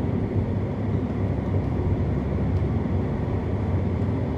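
Steady road noise of a car driving at highway speed, heard inside the cabin: an even low hum of tyres and engine with no changes.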